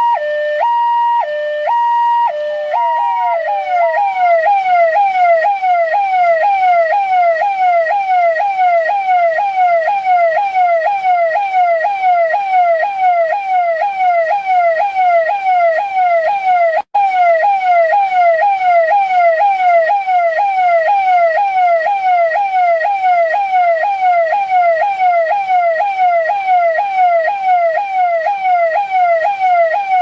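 Delhi Police electronic siren. It alternates between two tones, high and low, then about three seconds in switches to a fast yelp: a rapidly repeating sweep that falls in pitch each time. The siren cuts out for an instant about two-thirds of the way through.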